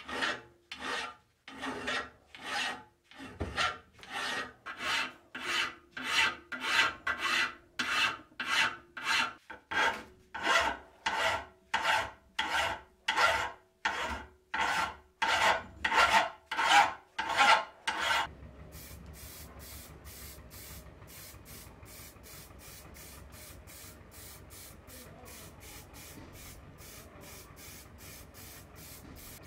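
Hand file rasping back and forth over a cast-iron lever part of an antique grape crusher held in a vise, about two strokes a second. The filing stops abruptly about 18 seconds in, leaving a quieter steady hum with faint regular ticking.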